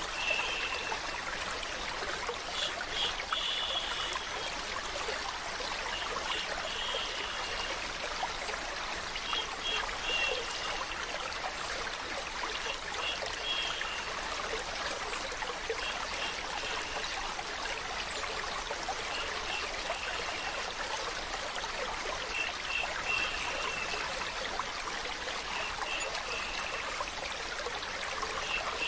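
Steady running water, with a soft 'shh' shushing sound repeated about every three seconds over it: baby-soothing white noise.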